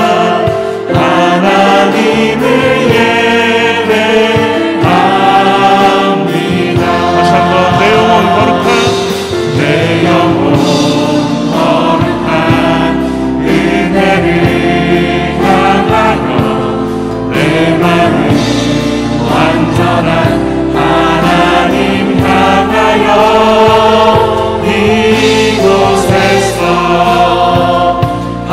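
Live contemporary Christian worship music: a group of men and women singing a Korean praise song together, backed by a band with drums, keyboard and guitars.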